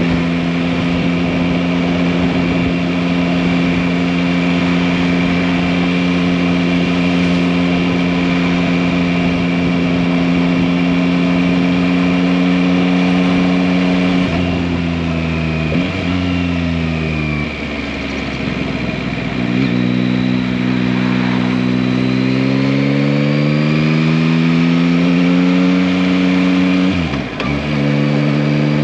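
Yamaha MT-09 (2021) 890 cc inline three-cylinder engine under way: it holds a steady engine speed, then about halfway the pitch drops in several steps as it slows through the gears. It then rises steadily as the bike accelerates, with a brief dip near the end at an upshift before settling again.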